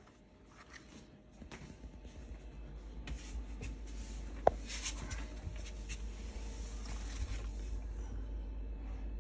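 Faint handling noises: light rustles, scrapes and clicks, with one sharp click about four and a half seconds in. Under them is a low rumble that grows louder about three seconds in.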